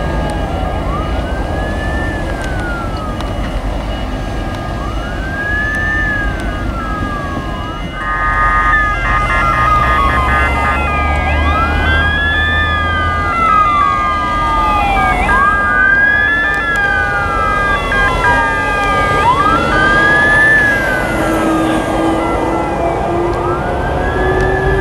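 Emergency vehicle sirens wailing, each sweep rising quickly and falling slowly, repeating every few seconds. About eight seconds in, a second siren joins with a higher, faster pattern of alternating tones. Heavy vehicle engines run low underneath.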